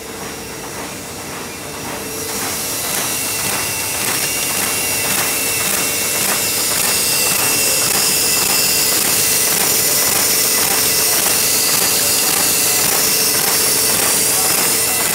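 A sheet-fed paper folding machine running, its suction feeder lifting printed sheets off a pile: a steady rhythmic clatter of a few ticks a second over a loud air hiss and a steady hum. It grows louder over the first few seconds.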